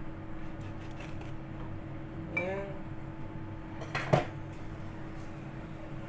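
A metal kitchen knife clattering down against a plate or counter about four seconds in, the loudest sound, over a steady electrical hum. A short pitched squeak-like sound comes a second and a half before it.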